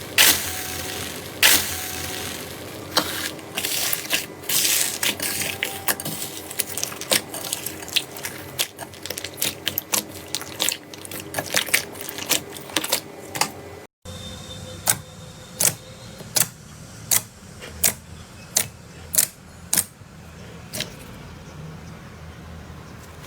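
Slime being squeezed and worked by hand, with many sharp clicks and pops of trapped air. After a brief break about 14 seconds in, the clicks come more sparsely, about two a second.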